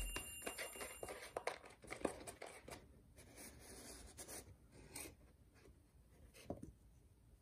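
Cat foraging in a food puzzle made of cardboard toilet-paper tubes: faint, scattered rustling and light clicks of cardboard as it noses into the tubes after food.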